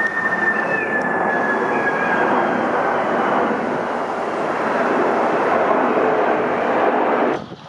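Boeing KC-767 tanker's jet engines running loud, with a high whine that slowly falls in pitch over the first two seconds or so. The sound cuts off abruptly near the end.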